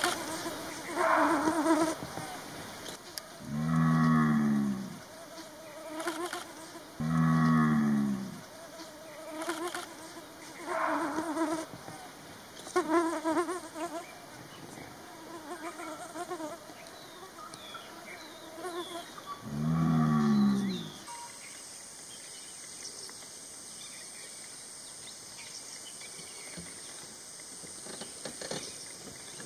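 Indian gaur calling with deep, moo-like lows: three long calls, each about a second, with shorter, higher calls in between. After about two-thirds of the way through the calls stop and a steady high-pitched insect drone remains.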